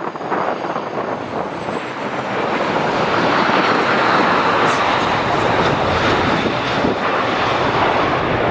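Fokker 70's two rear-mounted Rolls-Royce Tay turbofans running as the jet touches down and rolls out. The noise grows louder about two to three seconds in and then holds, as reverse thrust is applied on the landing roll.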